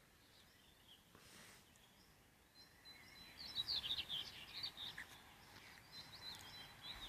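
Faint birdsong: small birds chirping and twittering in quick high notes, starting about three seconds in.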